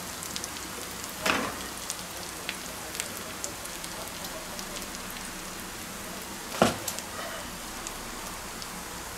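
Hot fat in a cast-iron pan sizzling softly with a steady fine crackle. Two short louder noises come about a second in and about two-thirds of the way through.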